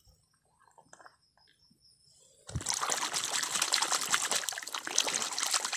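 Water splashing and sloshing as a hand churns through shallow muddy water, starting suddenly with a low thump about halfway through and going on steadily.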